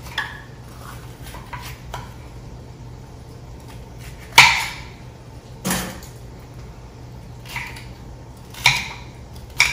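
Chef's knife cutting a red bell pepper on a cutting board: a few scattered knocks of the blade on the board, the loudest about four and a half seconds in and again just under six seconds in, with fainter taps between.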